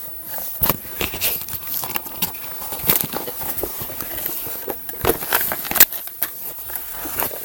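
Cat playing with a hair dryer's cardboard box: irregular scratching, rustling and knocking of the cardboard, with sharper knocks about a second in, near three seconds and around five to six seconds.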